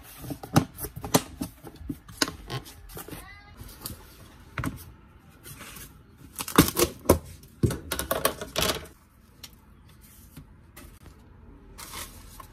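Plastic food-storage container and its lid being handled, with sharp clicks and crackles as the lid is pressed on and pried off, and parchment paper rustling. The crackling comes in two dense clusters, at the start and again past the middle, then dies down.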